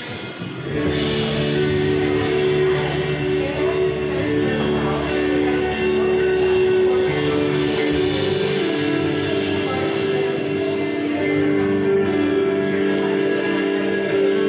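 Background music with held notes, getting louder about a second in.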